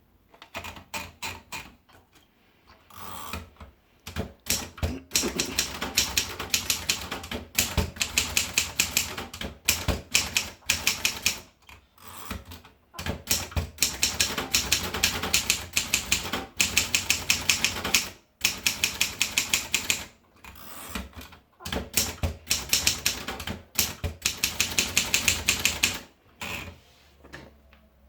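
Triumph Durabel manual typewriter being typed on: quick runs of sharp keystroke clacks, several a second, broken by short pauses.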